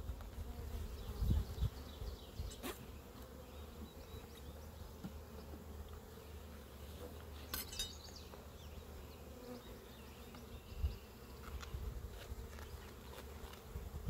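Honey bees buzzing steadily around an opened hive as its frames are inspected, a continuous low hum. Two sharp clicks break in, a few seconds apart.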